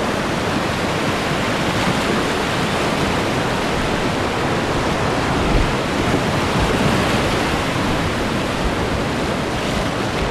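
Whitewater rapids rushing loudly and steadily around a kayak, heard up close from the boat at water level.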